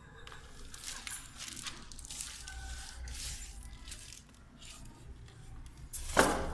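Packaging rustling and crinkling in irregular bursts as a new Dell monitor is unwrapped and handled, with one louder sharp burst near the end.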